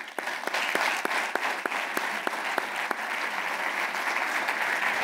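Audience applauding, with single sharp claps standing out at about three a second during the first three seconds.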